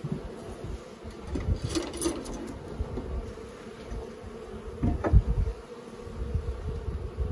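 Honeybees buzzing steadily around an open hive. Over the hum come knocks and scrapes of a metal hive tool prying wooden frames loose, loudest about five seconds in.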